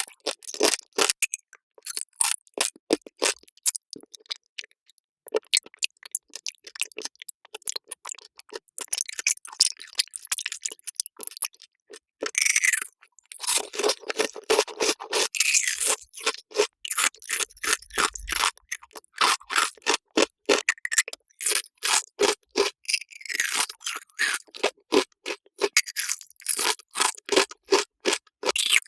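Close-miked eating sounds, sped up: a rapid string of crisp crunches, bites and chewing, with a few longer crackly stretches between the runs of bites.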